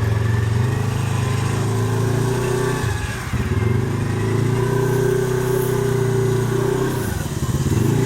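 Polaris RZR XP 1000 buggy's engine running hard while the buggy is driven and winched out of swamp mud; the revs sag about three seconds in and again near the end, then pick back up.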